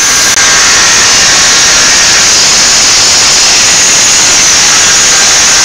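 Angle grinder with an abrasive cutting disc cutting through sheet iron, a loud, steady, unbroken grinding noise.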